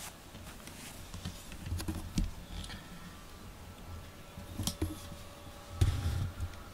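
Handling noise: low rumbles and rustling with a few soft knocks, the loudest near the end, as the camera is moved about. A faint ringing tone hangs on through the second half.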